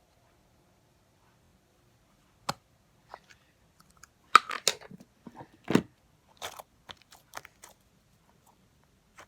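Small hard object being handled and pried at: scattered sharp clicks, crackles and scrapes, one about two and a half seconds in and a busy run of them in the middle.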